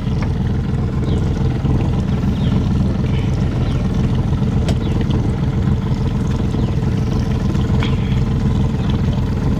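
Boat engine running steadily at low cruising speed, an even drone with no change in pitch.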